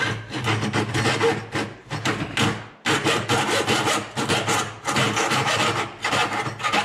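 Hacksaw cutting into a lithium-ion battery clamped in a vise, in repeated back-and-forth rasping strokes. There is a brief pause nearly three seconds in.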